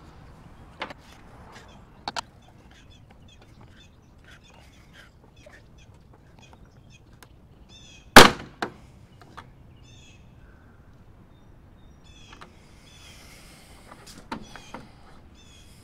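Plastic headlight trim being pried off a truck's fender with a rag-wrapped plastic pry tool: a few faint clicks and scrapes, then one sharp loud snap about eight seconds in as the trim's retaining clips give.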